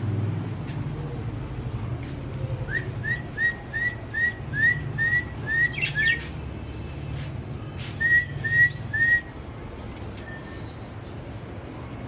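A series of short whistled notes, each curving upward in pitch, about three a second: a run of nine, a pause, then three more. A steady low hum runs underneath.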